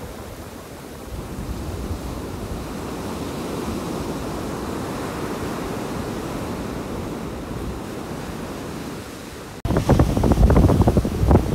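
Surf washing up the sand, its wash swelling and then easing off. About nine and a half seconds in it gives way suddenly to loud wind buffeting the microphone.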